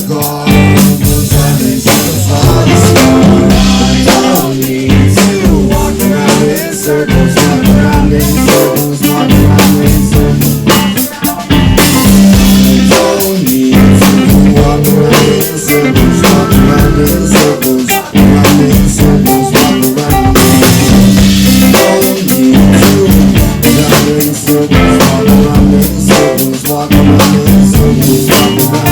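Live rock band playing loudly: drum kit with rimshots and electric guitar over a steady bass line, in a long passage without sung words.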